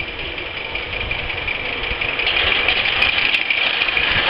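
G-scale model train running along the track toward the microphone, a steady rolling hiss that grows louder as it comes close, with a few sharp clicks near the end.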